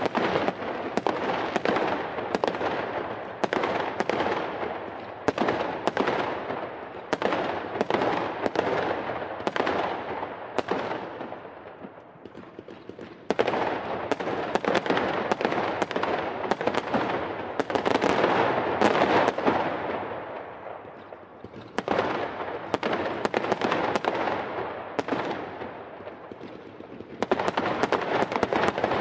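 Fireworks going off: a rapid run of sharp bangs over continuous crackling, easing off twice in short lulls and picking up again.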